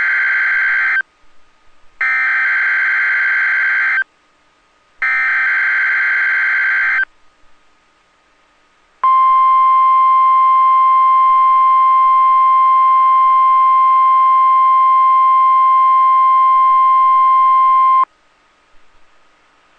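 NOAA Weather Radio SAME alert header: bursts of harsh digital data tones, each about two seconds long with a second's gap, the first already under way. About two seconds later comes the 1050 Hz warning alarm tone, a steady single pitch held about nine seconds before cutting off sharply. This is the signal that automatically switches on weather alert radios.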